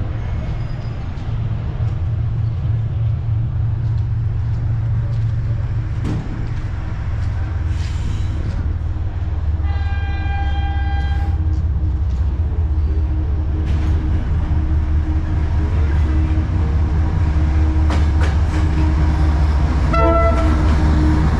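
Diesel locomotive of a freight train approaching, its engine rumble growing louder as it draws near. It sounds its horn once about halfway through, a chord held for under two seconds, and a shorter high tone follows near the end.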